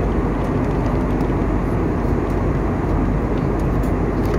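Steady in-flight cabin noise of an airliner: a constant low rumble and rush of engine and airflow, heard from inside the cabin.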